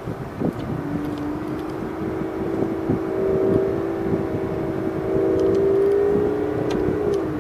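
Aston Martin Vanquish's 5.9-litre front-engine V12, heard from inside the cabin, pulling at low speed. Its note holds steady and grows louder, then drops in pitch near the end as the throttle eases.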